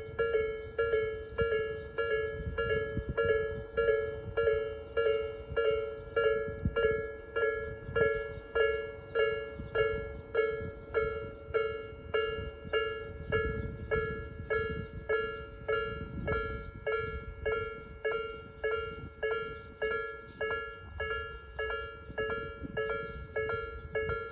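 Japanese railway level-crossing alarm of the Tobu Nikko Line, a slow Nikko-type electronic bell with a slightly distinctive tone, striking in a steady, even rhythm.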